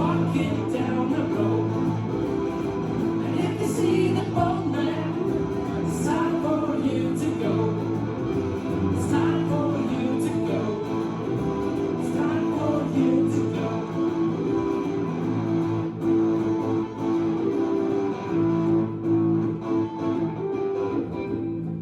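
Live band music led by guitar, steady and continuous, with sharp hits recurring about once a second, recorded on a phone in the room.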